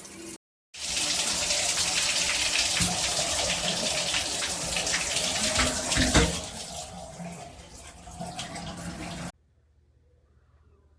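Water running from a Moen Ignite shower head and splashing, a steady rush that breaks off briefly about half a second in, weakens after about six seconds and cuts off sharply near the end.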